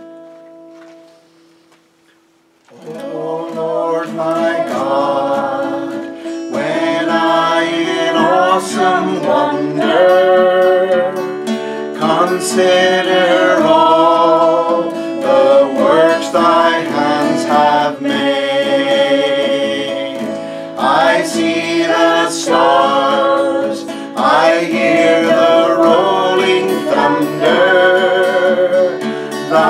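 A hymn sung to guitar accompaniment, starting about three seconds in after a short lull.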